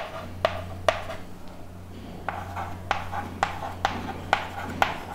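Chalk tapping dots onto a chalkboard: a series of sharp taps, about two a second, over a steady low hum that stops near the end.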